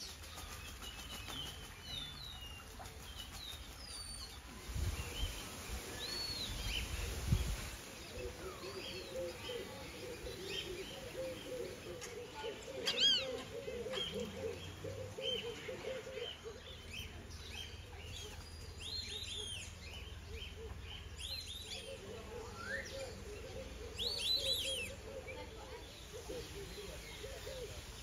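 Several birds calling: high chirps and short whistles throughout, with louder bursts of chirping about 13 and 24 seconds in, and long runs of a lower, fast-pulsing sound. A low rumble sits under the calls from about five to seven seconds in.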